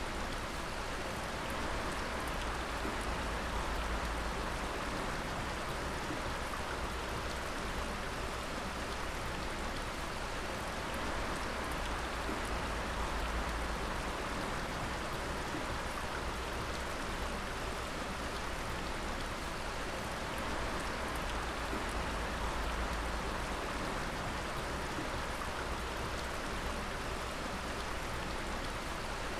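Water dripping, many drops falling at once into a dense, even patter like rain, holding steady throughout.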